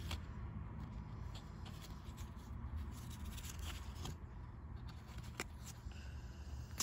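Yu-Gi-Oh trading cards flipped through in the hand: faint, separate slides and clicks of card stock as single cards are moved across the stack, over a steady low hum.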